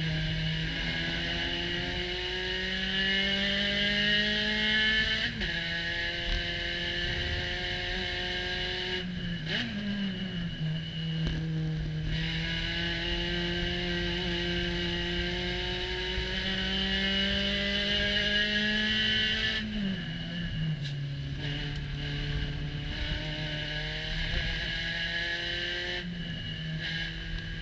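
Spec Racer Ford Gen3's Ford 1.6-litre four-cylinder engine heard from inside the open cockpit, pulling hard in third gear. Its pitch climbs slowly over long stretches, then dips briefly as the driver lifts or brakes for corners: about five seconds in, around nine to twelve seconds, around twenty seconds, and again near the end.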